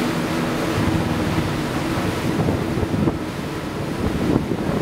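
Wind buffeting the microphone over the rush of water between a moving ship's hull and a pilot boat running alongside. A steady engine hum fades out in the first half second.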